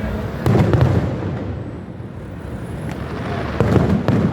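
Fireworks display: a continuous rumble of distant bursts, with louder sharp bangs about half a second in and again near the end.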